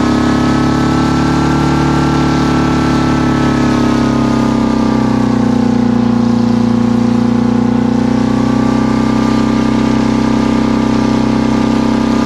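Detroit Diesel 8V71 two-stroke V8 running away at overspeed, with water from a hose being drawn into its blower. The engine runs loud and steady, its pitch sagging for a few seconds midway and then climbing back.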